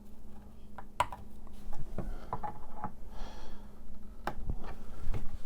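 Irregular small clicks and taps of plastic bulb sockets and needle-nose pliers being worked into an instrument cluster housing, the sockets pressed in and twisted to lock, with the sharpest click about a second in.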